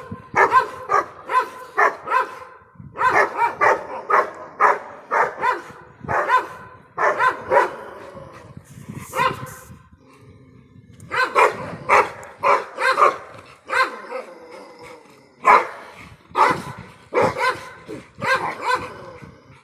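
Dogs barking over and over in quick runs of short barks, with a short break about ten seconds in.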